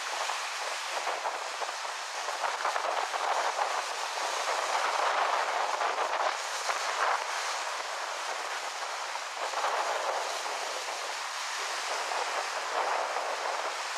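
Wind and small waves washing on a shore: a steady rushing noise that swells and eases every few seconds.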